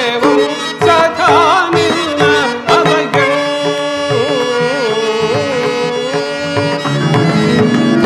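Carnatic-style stage-play background music: an ornamented melody sliding and wavering over a steady drone, with drum strokes in the first few seconds, then a long held wavering note.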